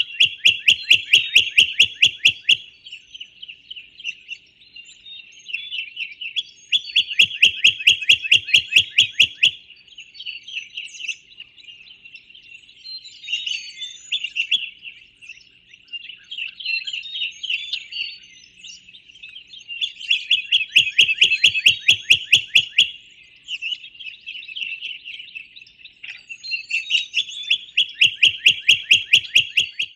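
Wild birdsong: a songbird sings a loud, fast, even trill lasting two to three seconds, repeated four times, over softer trills and scattered chirps from other birds.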